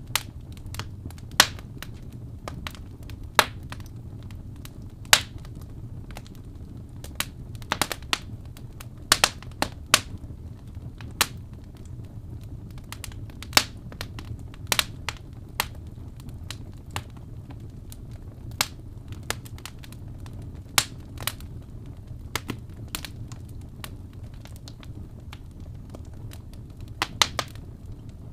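Wood fire crackling: irregular sharp pops and snaps, a few each second, over a steady low rumble of the flames.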